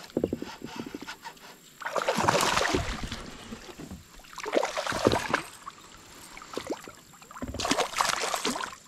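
Hooked fish thrashing and splashing at the surface beside a kayak, in three bursts about a second long, a couple of seconds apart.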